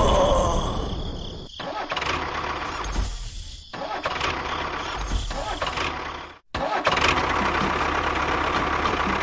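Motor running with a steady mechanical noise, broken into several short stretches by abrupt cuts, with a brief dropout about six and a half seconds in.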